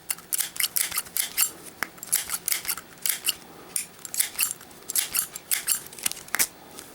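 Zippo lighter handled in the hands: a long, irregular run of quick, sharp metallic clicks and clinks from its steel case and hinged lid.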